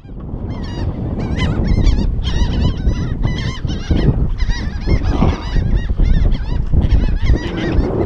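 A flock of seabirds calling over the boat: many short, overlapping squawks, several a second, over wind rumbling on the microphone.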